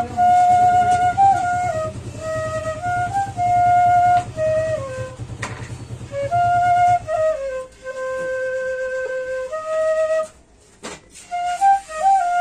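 Bansuri (bamboo flute) playing a slow folk melody of held notes that step up and down, with a short break about ten seconds in.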